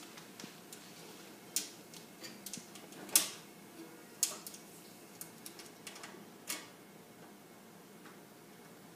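Irregular sharp clicks and taps of metal on metal: screws and a screwdriver against a desktop computer case while parts are fitted and screwed in. The louder clicks come about one and a half, three, four and six and a half seconds in.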